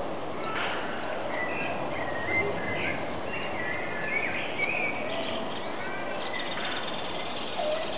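Several birds calling and chirping: short whistled notes and quick pitch glides, overlapping, over a steady background noise.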